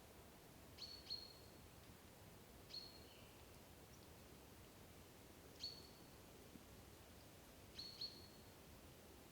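Sika deer whistling: faint, short, sharp high whistles, some single and some doubled, every two to three seconds. These are the deer's calls to one another in reaction to danger.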